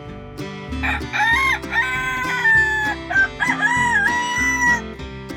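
Rooster crowing: one long cock-a-doodle-doo starting about a second in and lasting nearly four seconds, stepping up and down in pitch, over light acoustic-guitar backing music.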